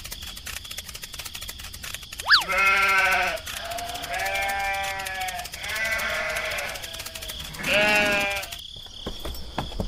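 Four bleating livestock calls, each about a second long and a second or so apart, dubbed in as a sound effect for the toy animals. A quick rising chirp comes just before the first call.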